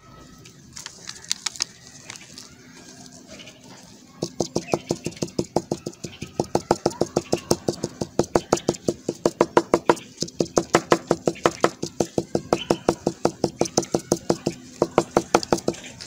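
Small knife blade scraping the heads off matchsticks onto paper on a wooden table, grinding them to powder. A fast, even run of short scraping strokes, about five a second, starts about four seconds in, after a few scattered strokes about a second in.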